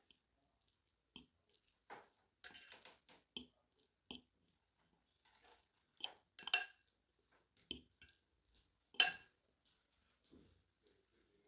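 Metal fork mixing tuna and blue cheese in a glass bowl: irregular clinks and scrapes of the fork against the glass with soft squishing, the sharpest clinks about six and a half and nine seconds in.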